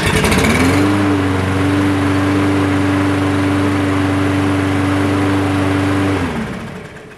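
Ready Start push mower's small engine running after a carburetor cleaning: it comes up to speed in the first second, runs steadily and smoothly for about six seconds, then winds down and stops near the end.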